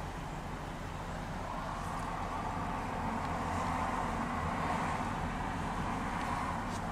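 Ford 6.7-litre Power Stroke turbo-diesel V8 idling steadily, heard from inside the cab. A soft rushing sound builds from about a second and a half in and fades near the end.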